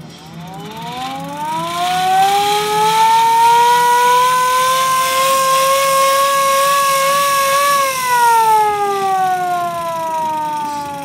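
A siren winds up over about two seconds to a steady wail, holds it, then winds slowly down from about eight seconds in.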